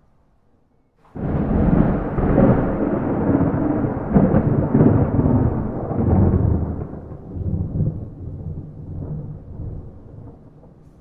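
A thunderclap breaks suddenly about a second in, then long rolling rumbles that fade over the following seconds. No rain.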